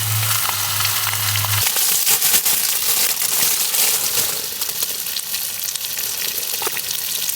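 Beef burger patties sizzling and crackling in a pan on a camping stove. A low steady hum runs under it and stops about one and a half seconds in.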